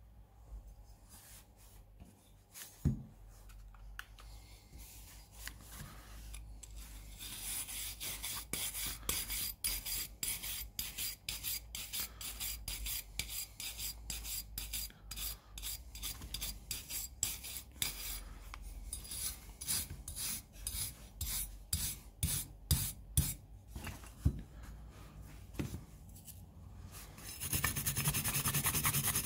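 Stiff hand brush scrubbing the rusty steel grip frame of a Luger P08 pistol, in back-and-forth scraping strokes about two or three a second that speed up into fast continuous scrubbing near the end. A single knock comes about three seconds in, before the brushing starts.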